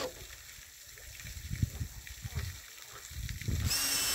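Dull knocks and thuds of timber being handled as a deck joist is set into its metal joist hangers. Near the end a power drill whirs briefly with a steady whine.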